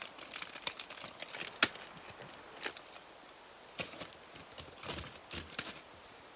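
Plastic packaging crinkling and craft supplies rustling as a sleeved notebook is lifted out of a cardboard box. Irregular clicks and crackles, with a sharper snap about a second and a half in and a busier run of handling noise near the end.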